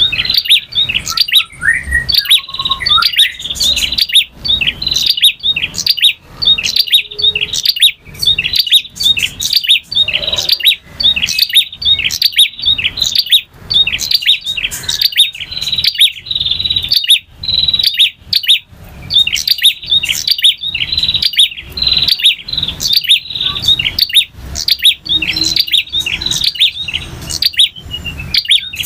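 Male prinia (prenjak) singing a long, continuous run of short, rapidly repeated high chirping notes.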